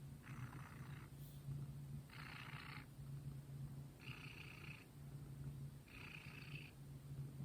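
Domestic cat purring steadily and quietly, with a soft breathy rasp about every two seconds.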